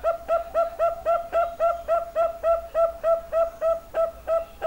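Young zebra dove (perkutut) calling a long, fast run of short, loud coos, about four a second, each note on the same pitch.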